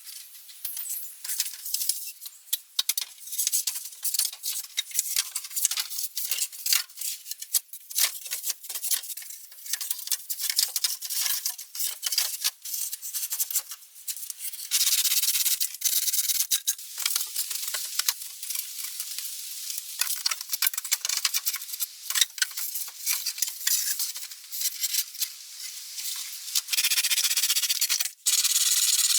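Crackling, scraping handling noise with many small clicks; about halfway in it becomes a steadier rubbing or scraping.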